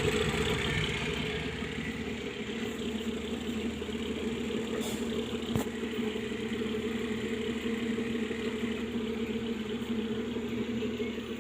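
Electric circulation fans inside a refrigerator-cabinet egg incubator, running with a steady hum and whir. A faint click about halfway through.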